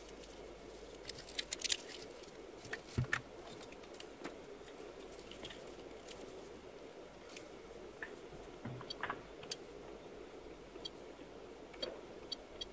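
Faint scattered clicks and light handling noises over low, steady room tone. Near the end comes a quick run of small clicks from buttons being pressed on an electronic signal generator's front-panel keypad.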